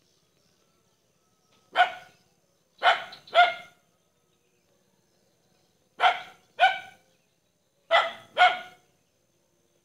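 A dog barking off-screen: seven short barks, the first alone and the rest in pairs about half a second apart.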